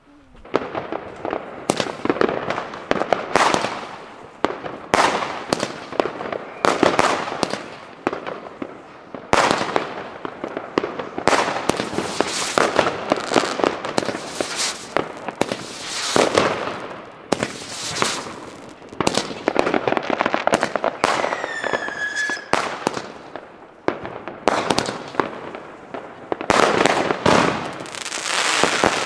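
Category 2 consumer fireworks going off in quick succession: dense crackling with louder surges every second or two. About 21 seconds in, a whistle falls in pitch.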